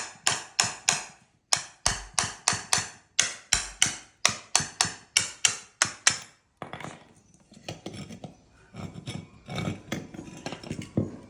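A hammer striking metal in quick repeated blows, about three a second, each ringing briefly. About six and a half seconds in, the blows give way to lighter, irregular knocks and clatter of metal parts being handled.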